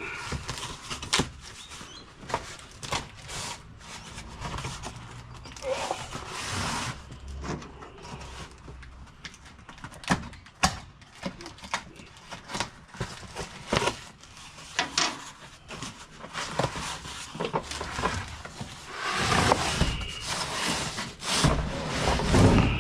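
Cardboard box being opened and a heavy packaged product handled: scattered knocks, clicks and rustling. A louder, longer scraping rush comes near the end.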